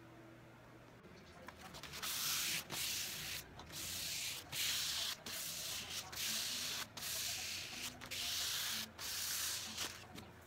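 Hand-sanding a color-washed wooden tabletop: rhythmic scratchy strokes of an abrasive pad over the wood, about one stroke a second, starting about two seconds in. This is light sanding between coats of the wash.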